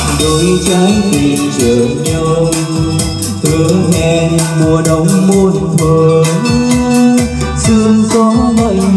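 Karaoke song played loud through a T'Sound T68 karaoke speaker cabinet: a backing track with a steady beat and a man singing into the microphone over it.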